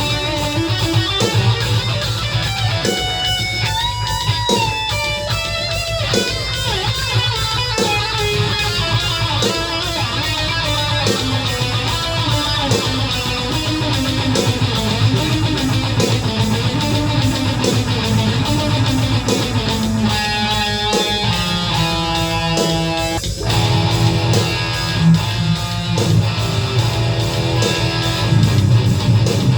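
Distorted electric guitar, an ESP LTD EC-10 through a Boss ML-2 Metal Core pedal and a Line 6 Catalyst amp, playing a blackened power metal riff over a drum-machine metal beat. A brighter held-note melodic phrase comes in about two-thirds of the way through.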